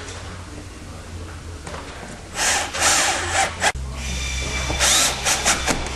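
Cordless drill-driver driving screws to fasten a cable-entry cover down on a van's roof. It runs in two short spells, about two seconds in and again near the end, each finishing with a few quick blips of the trigger.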